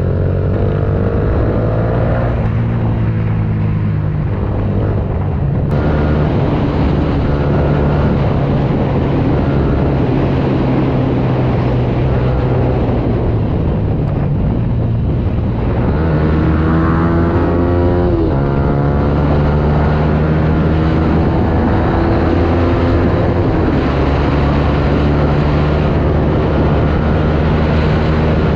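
Yamaha Sniper 150's single-cylinder four-stroke engine pulling hard under acceleration. The revs climb and then drop sharply at gear changes, once shortly after the start and again about eighteen seconds in, and run steady in between.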